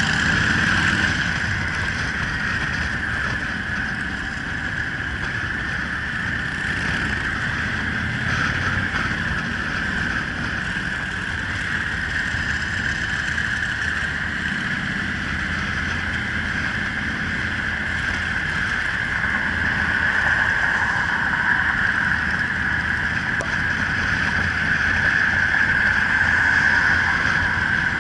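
Steady rush of wind on the microphone over the low drone of a motorcycle engine, heard from a camera mounted on the moving bike, swelling slightly louder near the end.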